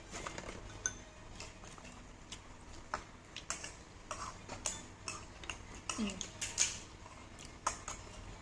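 Spoons and cutlery clinking and scraping against plates and bowls while people eat: irregular light clicks and clinks.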